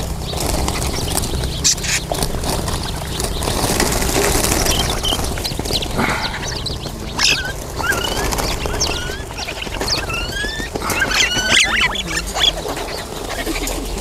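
Many mynas, bulbuls and sparrows calling at once as they are let out of a cage: a jumble of harsh squawks and short rising whistles, thickest about three-quarters of the way through.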